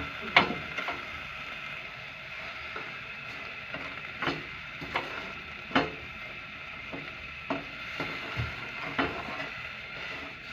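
Spoon stirring melting jaggery in a cooking pan, with irregular clicks and knocks as it scrapes and taps the pan, over a steady hiss.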